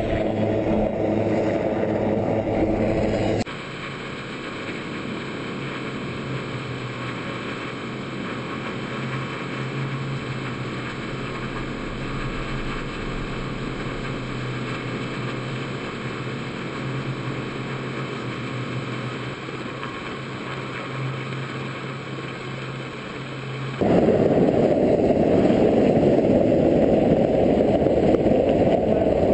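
Helicopter noise across hard cuts between clips: loud with steady engine tones at first, then quieter with a steady low hum from about three seconds in, then a loud rushing noise near the end.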